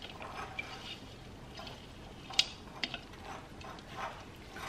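Broccoli florets tumbling from a bowl into the creamy broth in a slow cooker, soft wet splashes, with two sharp light clicks about half a second apart near the middle.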